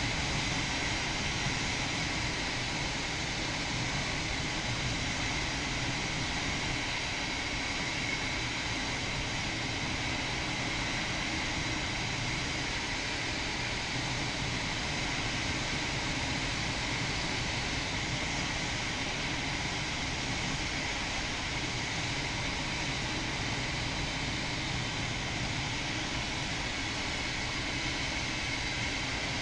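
Steady rush of airflow over a PW-6U glider's canopy and fuselage in engineless gliding flight, heard from inside the cockpit.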